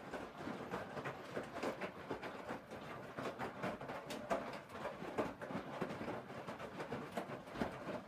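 Hoover Dynamic front-loading washing machine with its drum turning during a wash: wet laundry sloshing and tumbling in water, with many small irregular knocks.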